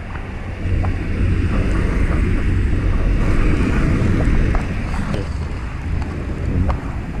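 Cars driving past on a street, a steady rumble of engines and tyres, with wind buffeting the microphone.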